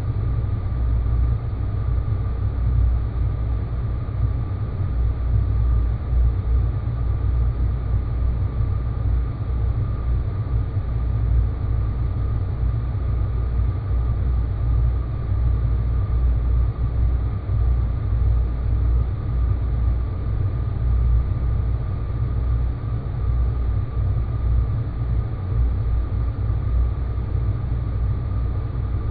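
Space-planet ambient noise drone: a steady, deep rumble with a faint high hum held over it, unchanging throughout.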